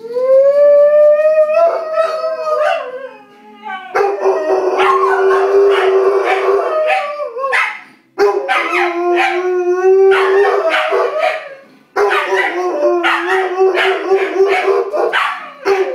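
Pet dog howling: one long howl that rises in pitch at the start, then long steady howls that break off and start again sharply twice. The howling is set off by a TV show's theme song.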